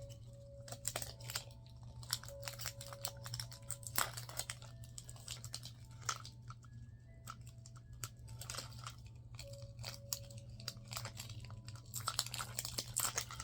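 Thin plastic wrapping crinkling and tearing in short, irregular crackles as the white outer layer is peeled off a Mini Brands capsule ball by hand.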